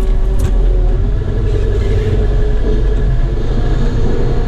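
Caterpillar 914G wheel loader's diesel engine running steadily as the loader drives forward, with a steady whine over the low engine rumble.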